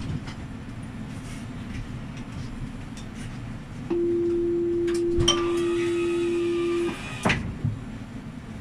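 GEC-Alsthom TFS tram's door-closing warning at a stop: a steady buzzer tone of about three seconds, joined partway through by a click and a higher ringing tone. It ends with a knock, over the low hum of the stationary tram.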